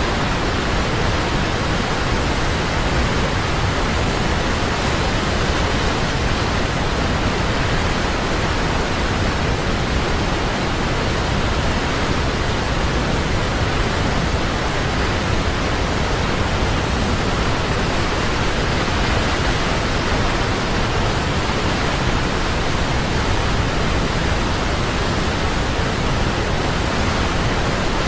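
Waterfall rushing: a loud, steady wash of falling water that never changes.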